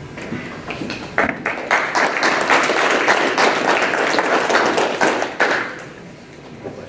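Audience applauding: a few scattered claps that build within about a second into steady applause, which fades out about six seconds in.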